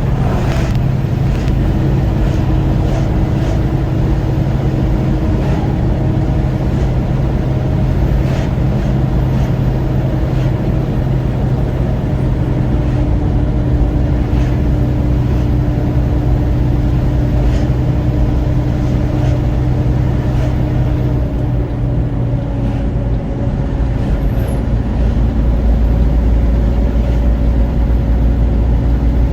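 Vehicle engine and road noise, droning steadily at highway speed. The engine note drops slightly a little after twenty seconds in.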